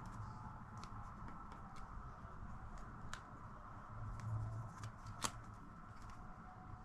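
Faint handling noises of a small device and its parts: scattered light clicks and rustles, with two sharper clicks about three and five seconds in.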